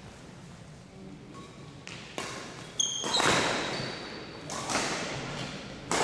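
Badminton rally: sharp racket hits on the shuttlecock, about four in the second half, each echoing in the gym, with a short sneaker squeak on the hardwood floor about three seconds in.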